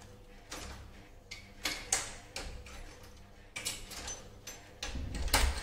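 Plastic clicks and small knocks from handling a Canon EOS M50 camera body while fumbling to fit its battery into the battery compartment. The clicks come irregularly, a few per second, with the loudest near the end.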